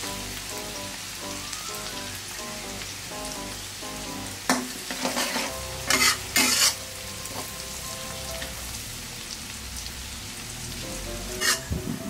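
Chopped garlic sizzling steadily as it deep-fries in plenty of oil in a steel wok over medium heat, turning golden and crisp. A metal wok spatula scrapes and knocks against the wok a few times, loudest about halfway through.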